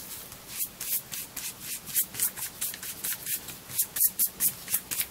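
A bristle paintbrush scrubbed back and forth over the napped flesh side of a piece of leather, working in wet CMC (carboxymethyl cellulose) glue to lay the fibres down: quick, scratchy strokes, about four a second.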